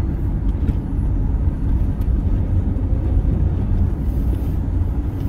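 Steady low rumble inside a moving car's cabin: road and engine noise while driving.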